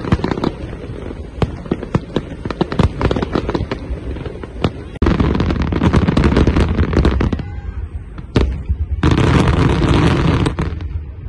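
Fireworks going off in a rapid string of sharp bangs and pops. About five seconds in, and again near nine seconds in, the bursts run together into a dense, continuous crackle and rumble of a heavy barrage.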